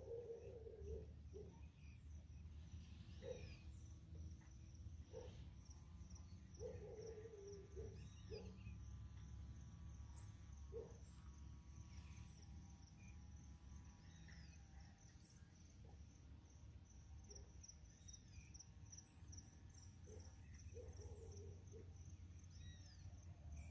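Faint natural ambience: insects keep up a steady, high, pulsing trill. A few short bird chirps break in now and then over a low, constant rumble.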